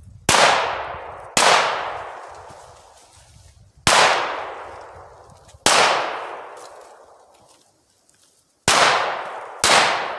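Browning Buck Mark .22 LR pistol firing six single shots at an uneven pace. Each sharp crack trails off in a reverberant tail over a second or two.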